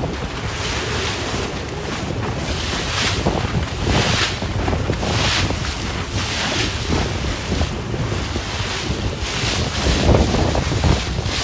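Wind buffeting the microphone over choppy open sea, with waves washing and splashing around a small boat; the noise swells and eases about once a second.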